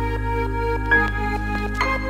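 Gentle background music: a steady low drone under a few clear melodic notes, with new notes struck about a second in and again near the end.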